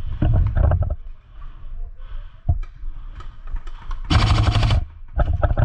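Airsoft electric rifle firing a short full-auto burst about four seconds in, lasting under a second, amid knocks and rustling of gear and movement.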